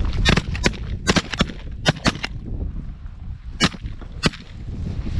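Volley of shotgun blasts from several hunters firing together at waterfowl: a quick string of about eight shots in the first two and a half seconds, then two more spaced shots. Wind rumbles on the microphone underneath.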